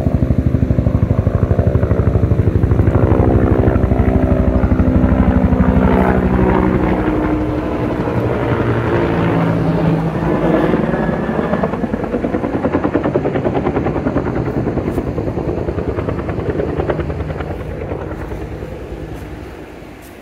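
A loud motor with a fast, even pulsing beat passes by, strongest in the first half and fading away over the last few seconds.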